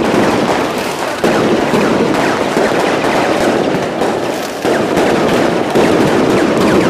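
Strings of firecrackers going off in a dense, continuous rattle, the loudness jumping up suddenly a few times.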